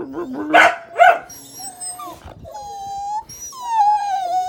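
Dogs whining and crying for food. A low grumble rises into two short barks about a second in, then long high whines slide down in pitch.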